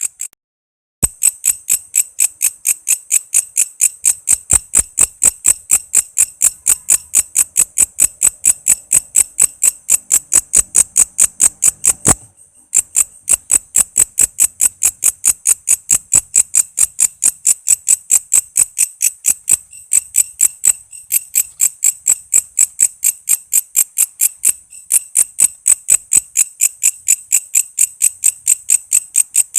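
Walang kece insect chirping in a fast, even train of shrill pulses, about three to four a second. The chirping breaks off briefly near the start and again about twelve seconds in, each time with a click.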